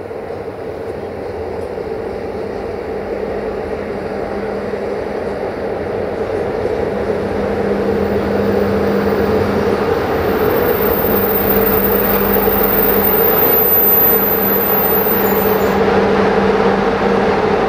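Train approaching, its running noise growing steadily louder, with a steady hum underneath.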